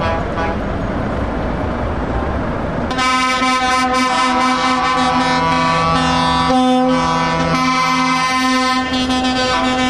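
Truck air horn sounding one long, continuous blast, starting suddenly about three seconds in and held to the end, with a lower second note dropping out near the end. Before the horn, a truck's engine runs as it pulls away.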